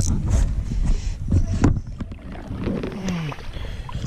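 Knocks and handling noise on a small fishing boat while a hooked fish is played out of the weeds, over a steady low rumble. A short falling vocal sound comes about three seconds in.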